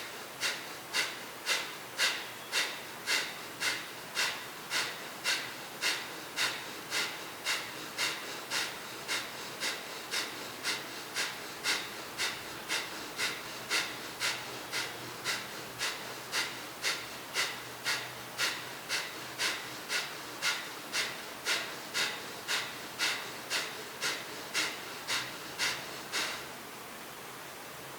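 Kapalbhati pranayama breathing: a man's sharp, forceful exhales through the nose in a fast, even rhythm of about two a second. This is the round of 50, and it stops near the end.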